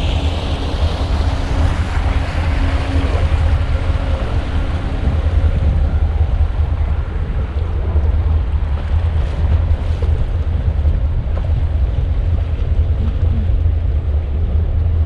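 Sea Ray Sundancer cruiser under way: steady wind noise on the microphone over a low, even rumble from the boat and water along the hull.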